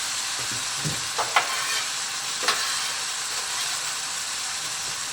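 Ground beef sizzling steadily in a skillet, with a few short clicks of a utensil about a second and two and a half seconds in as chopped onion goes into the pan.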